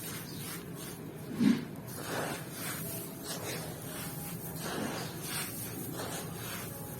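Soft crunching and hissing of dusty material being crumbled, in loose strokes every second or so, with one dull low thump about a second and a half in.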